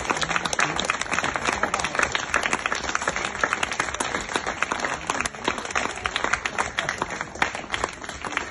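A crowd of guests applauding, a dense patter of many hand claps that thins out and fades near the end.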